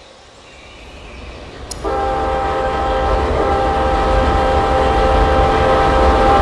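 BNSF freight locomotive's multi-tone air horn sounding one long steady blast that starts about two seconds in, over the rumble of the fast train growing louder as it approaches.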